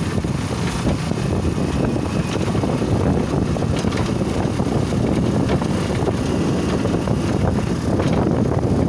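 Motorcycle with sidecar riding along, its engine running steadily under heavy wind buffeting on the microphone.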